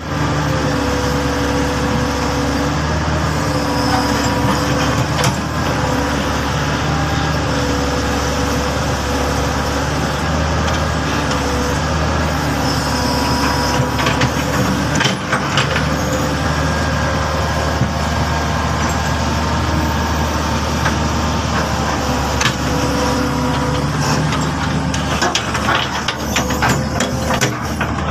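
Hitachi excavator's diesel engine running steadily, its hum shifting slightly in pitch now and then. Occasional sharp metallic knocks come through, more of them near the end.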